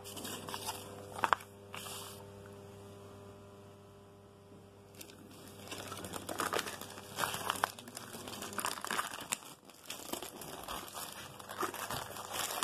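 Paper instruction leaflet and plastic packaging crinkling and rustling as they are handled, in irregular bursts that grow busier in the second half. There is a sharp crackle about a second in.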